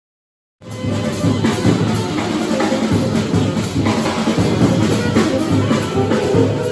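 Background music with a full drum kit, cutting in abruptly about half a second in after a moment of silence.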